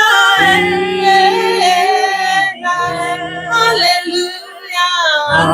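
Worship singing: a voice holding and sliding through the long drawn-out notes of a repeated 'hallelujah' refrain over sustained instrumental backing, with a brief drop about four seconds in.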